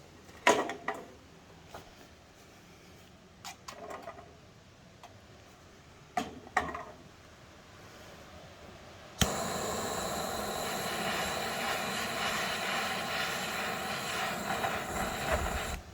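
A few sharp clicks, then about nine seconds in a Jobon jet torch lighter lights with a click and burns with a steady, loud hissing flame for about six seconds before cutting off suddenly.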